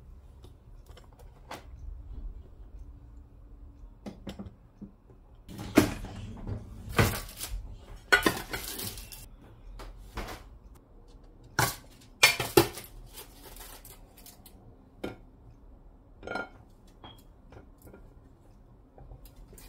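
Ceramic plates being moved, set down and slid on a kitchen countertop: a run of clinks and clatters in the middle, then a few lighter knocks.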